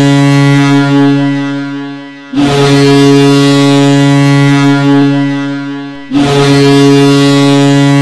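Ice hockey arena goal horn, the signal that a goal has been scored, sounding in long low blasts: one tapers off about two seconds in, a second runs about four seconds and fades, and a third starts about six seconds in.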